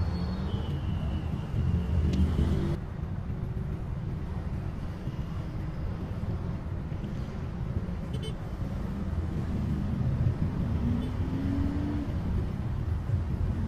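Steady low engine and road rumble of a Toyota HiAce Premio van, heard from inside the cabin while it drives in traffic. The engine note rises briefly near the end as the van picks up speed.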